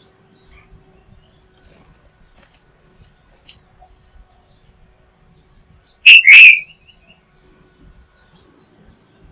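A bird gives one loud, harsh two-note call about six seconds in, followed by a single short high chirp a couple of seconds later.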